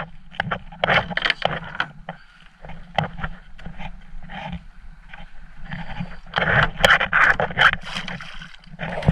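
A folding wooden boarding ladder is swung out over the boat's side with irregular wooden knocks and scraping. Water splashes loudest toward the end as the ladder drops into the sea.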